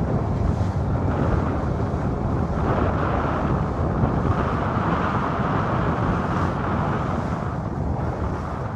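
Steady wind buffeting the microphone, with water rushing along the hull of a sailboat under way.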